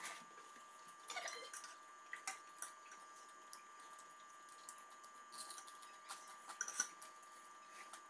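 Quiet table sounds of eating and food preparation: scattered faint clicks and taps of a spoon against bowls and hands handling food, with a few slightly louder clatters about a second in and near the end, over a faint steady hum.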